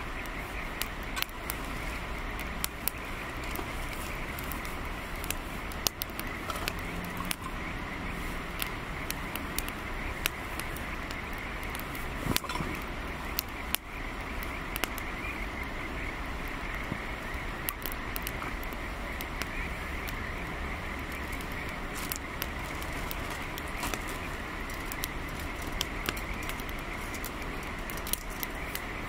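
Wood campfire crackling, with irregular sharp pops and snaps from the burning kindling over a steady background hiss.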